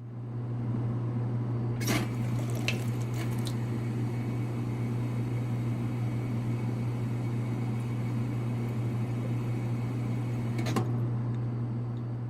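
A steady low hum under a haze of moving liquid, with a few sharp clicks about two seconds in and once more near the end.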